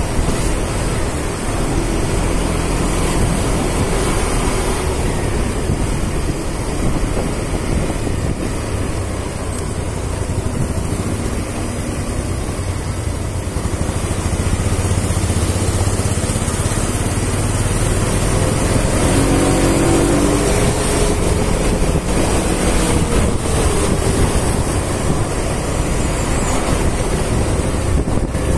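Motor scooter under way in town traffic: a steady mix of its small engine, tyre and wind noise. A pitched engine note rises and falls around twenty seconds in.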